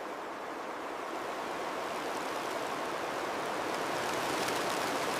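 Steady rushing of water, an even hiss with little low rumble that grows slowly louder.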